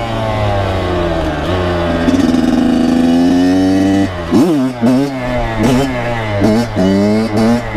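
Kawasaki KX100's two-stroke single-cylinder engine under way, holding a fairly steady note for about four seconds. It then dips sharply and picks up again, and from there it revs up and down about twice a second as the front wheel is lifted into a wheelie.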